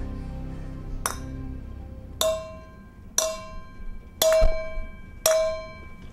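A bell-like chime struck five times, about once a second, each strike ringing briefly before dying away; the first strike is fainter.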